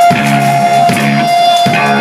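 Amplified electric guitar playing a repeated figure, a low strike about every three quarters of a second, over a steady high tone that holds throughout.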